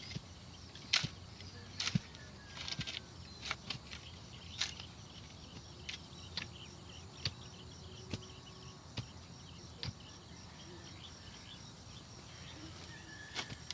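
Irregular knocks and scrapes of a shovel digging and packing soil around the base of a post being set, over steady insect chirring.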